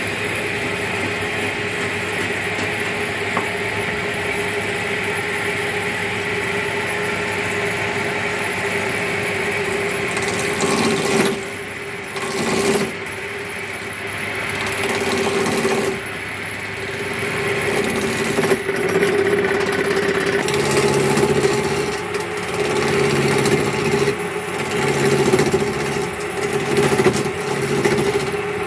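Wood lathe motor running with a steady hum while a hand-held turning chisel cuts into a spinning wooden table-leg blank, with a rough scraping noise of steel on wood. The cutting noise breaks off briefly a few times around the middle. From about two-thirds in, it comes in short repeated strokes, roughly one a second, as grooves are cut.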